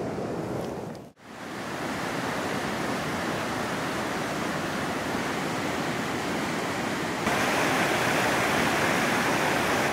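Fast mountain river rushing over boulders in white-water rapids, a steady dense rush of water. It starts after a short fade to silence about a second in and gets louder about seven seconds in.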